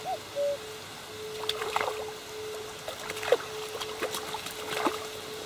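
A hooked fish splashing at the water's surface several times as it is played on a float rod.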